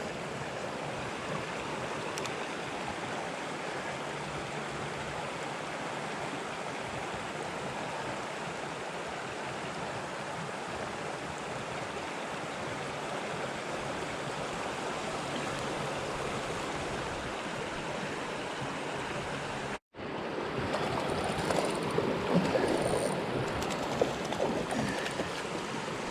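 Creek water running steadily over a riffle. After a brief break about three-quarters of the way in, the water sound is louder and more uneven, with a few sharp knocks.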